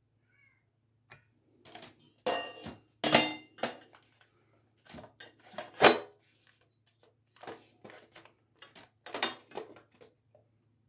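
Irregular clicks, knocks and rattles of hard plastic cable trunking pieces being handled and fitted together, loudest about three and six seconds in.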